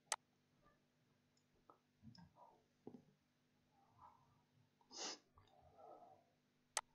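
Near silence, broken by two sharp computer-mouse clicks, one at the start and one near the end, with a few faint soft noises between, the loudest about five seconds in.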